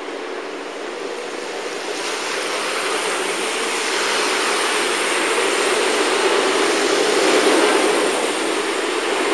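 Car tyres hissing and swishing on a wet, slushy road as a car crosses the tracks, growing louder as it approaches and loudest a little before the end.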